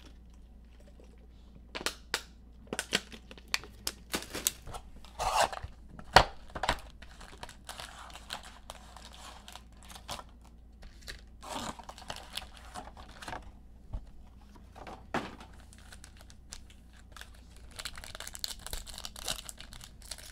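Packs of Panini Mosaic basketball trading cards being torn open, with the wrappers crinkled: bursts of sharp tearing and crackling, thickest and loudest in the first few seconds, then lighter, scattered rustling.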